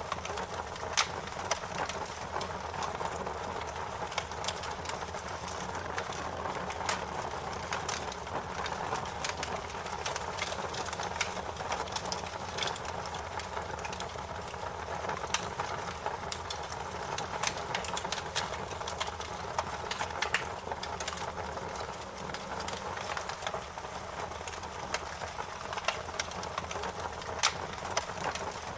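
Wood fire burning and crackling, with frequent sharp pops and snaps scattered irregularly over a steady hiss.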